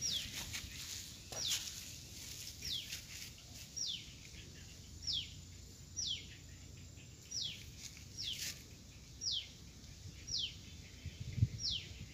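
A bird calling over and over, a short high whistle sliding downward, about once a second. A single low thump near the end.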